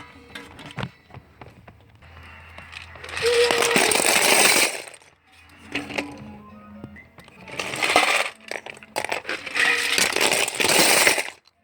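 Loose plastic Lego bricks poured out in a cascade, falling and clicking against each other: a short pour about three seconds in and a longer one from about halfway until just before the end, with scattered clicks of single bricks between.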